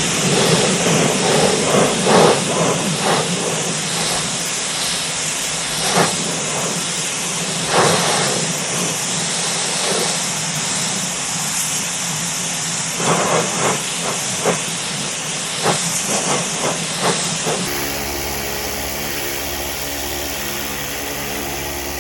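Ryobi 1600 psi electric pressure washer spraying a jet from its 15-degree nozzle onto a plastic pool skimmer cap: a loud steady hiss of water with irregular splattering bursts. Near the end the sound shifts to a quieter, steadier hiss with a low hum.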